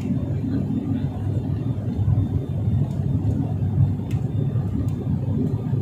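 Steady low rumble of engine and airflow noise inside an airliner cabin during the descent to land, with a few faint clicks.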